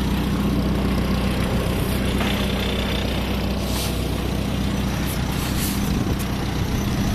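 Farmall tractor engine idling steadily, an even low engine note that does not change.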